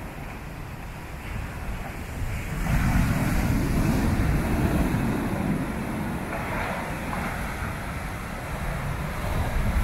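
Storm surf: heavy waves breaking and sheets of foam washing up the beach in a continuous rush. It swells about two and a half seconds in, eases off after about six seconds, and builds again near the end.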